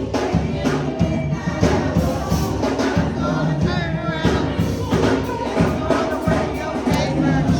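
Gospel music: a group of voices singing over a steady beat.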